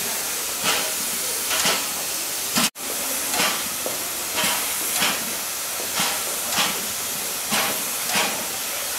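Ol49 steam locomotive standing with steam hissing steadily, a short regular puff about once a second on top of the hiss. The sound drops out for a moment about three seconds in.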